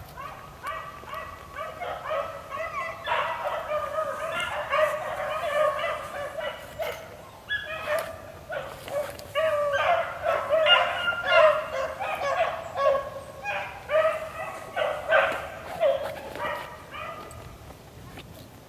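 A pack of beagles baying on a rabbit's trail, several hounds' voices overlapping in full cry. The chorus thins and fades near the end.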